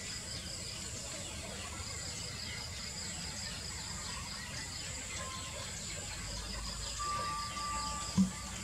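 Insects chirping steadily and high-pitched in a continuous pulsing chorus. Near the end a short thin whistle-like tone sounds, and then a single thump, the loudest sound here.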